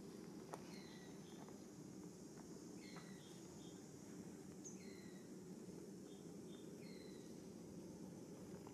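Faint outdoor ambience: a bird's short falling chirp, repeated about every two seconds, over a low steady background noise.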